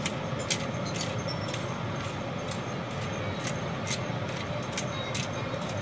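Steady room-fan hum with light, high-pitched clicks or rattles about twice a second.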